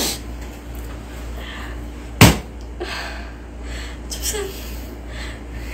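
A single sharp thump or smack a little over two seconds in, over faint voices and a low steady hum.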